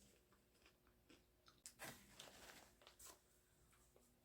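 Faint crunching and chewing of air-popped popcorn, with a cluster of soft crunches about two seconds in and another near three seconds.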